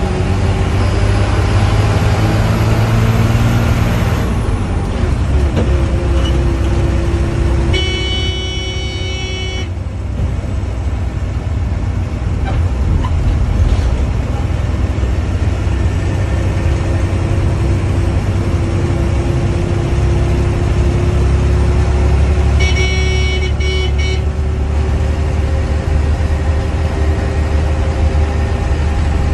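Diesel bus engine running steadily under way, its note slowly rising through the second half. A horn sounds twice, each blast about two seconds long, once about eight seconds in and once about twenty-three seconds in.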